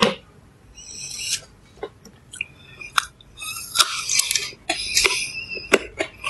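A person chewing fruit close to the microphone: irregular wet crunches and mouth clicks.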